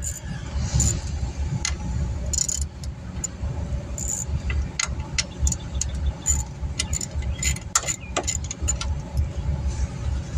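Hand tools clinking and clicking as they are handled, in many short metallic ticks, over a steady low rumble.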